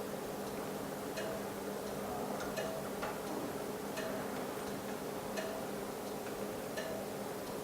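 OCA laminating machine running: a steady low hum with a short tick about every second and a half.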